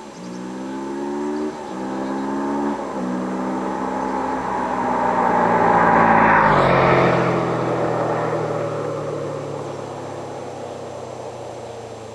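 Kawasaki Ninja 650R parallel-twin with a custom quiet "stealth" exhaust accelerating toward the listener, its engine pitch climbing and then dropping at two upshifts. It then runs at a steady pitch, passes about six and a half seconds in with a drop in pitch, and fades away.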